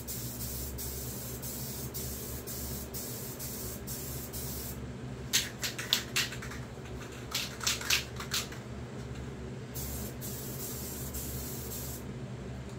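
Aerosol can of satin clear coat spraying onto wood in long steady hisses. About five seconds in, the steady hiss gives way to a few seconds of short, sharper bursts, then a second long hiss follows and stops shortly before the end.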